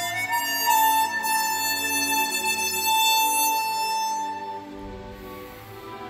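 Swan SW1248 chromatic harmonica, airtightened by sanding its comb and mouthpiece flat, playing a slow melody. A few short notes lead into one long held note, which fades out about four to five seconds in.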